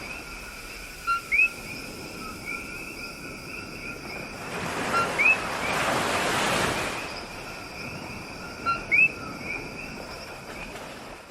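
Coqui frogs calling their two-note "co-qui", a short low note then a higher rising one, three times about four seconds apart, over a rush of waves that swells about halfway through.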